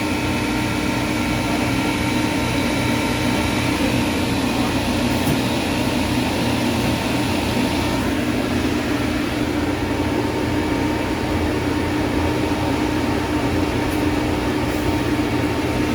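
Navac refrigerant recovery machine's compressor running steadily with a constant hum, in its purge cycle, pushing the refrigerant left in the machine into the recovery tank.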